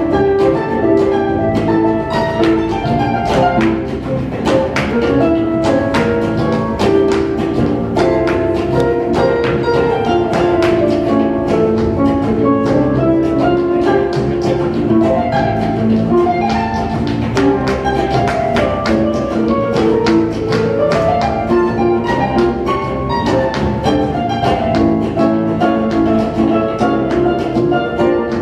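Live flamenco–Indian fusion music from an ensemble of acoustic guitar, sitar, tabla, harp and bowed strings, with held melodic notes over a dense run of sharp percussive strokes.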